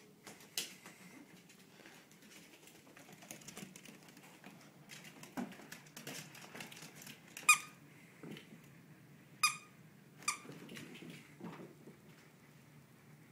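Squeaky dog toy squeaking in a few short, sharp squeaks spaced seconds apart, with faint tapping and scuffling of a small dog playing on a hardwood floor between them.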